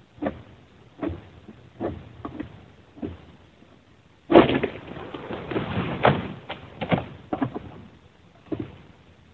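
Oil palm harvesting sickle on a long pole hacking at a frond base in short repeated pulls, sharp knocks about once a second. About four seconds in, the cut palm frond breaks away and falls with a sudden loud crash and about three seconds of rustling leaves, and a few more strokes follow.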